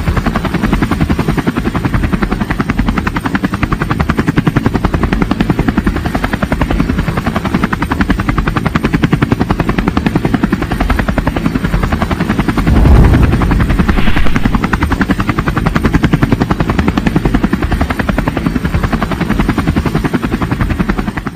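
Helicopter flying overhead, its rotor beating in a rapid, steady chop that swells briefly about two-thirds of the way through.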